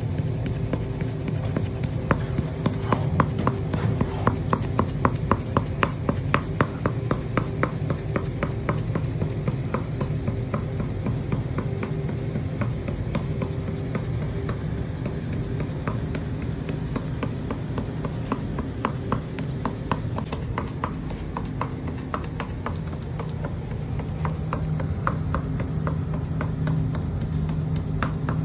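Rapid, evenly spaced taps, about three a second, of a stick against the lip of a pot of sugar syrup as it knocks drops of syrup out one by one to form batashe. The taps come in long runs, over a steady low hum.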